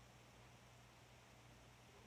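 Near silence: room tone with a faint steady hiss and a low hum.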